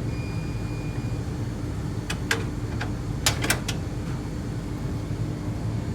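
Steady low machine hum, like a fan or ventilation running, with about six sharp clicks and taps between about two and four seconds in.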